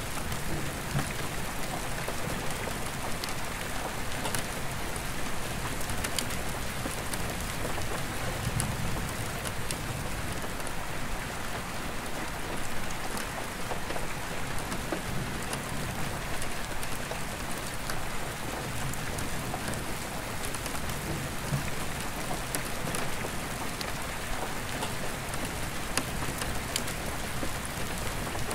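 Steady rain on an attic skylight heard from inside, a constant hiss with many single drops tapping on the glass. Low rumbles of distant thunder swell and fade now and then underneath.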